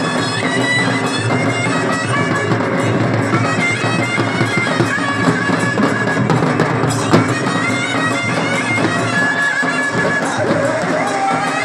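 Live village folk music: a reedy, bagpipe-like instrument playing a sustained tune over a steady drone, with men singing through microphones and drums.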